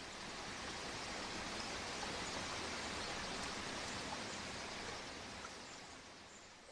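Flowing river water, a steady rushing that swells in over the first second or so and fades away over the last couple of seconds.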